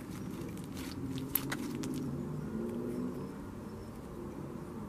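Creamy butter slime being stretched, folded and squished by hand, giving a few short sticky clicks and pops, the sharpest about a second and a half in. Underneath runs the steady low rumble of passing cars.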